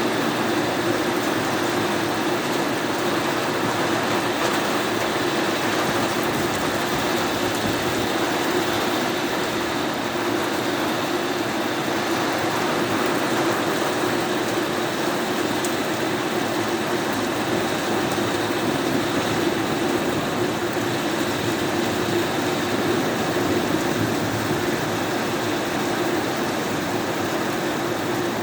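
Heavy downpour beating on a house, a dense, steady rush of rain that sets the house humming.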